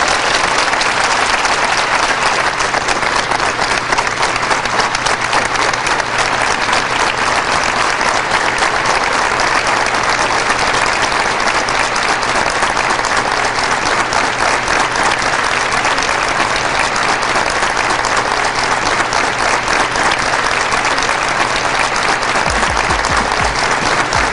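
A large crowd applauding steadily, with dense, continuous clapping.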